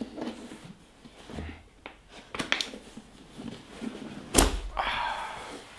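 Latches of a DJI Ronin-S foam carrying case being unclipped: a few light clicks about two seconds in, then one loud snap a little after four seconds.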